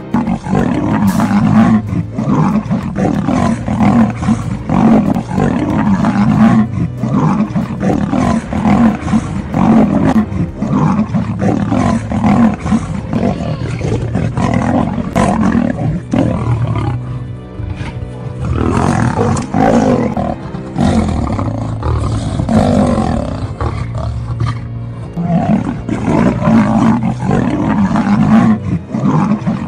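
Lion and tiger roaring as they fight, over background music.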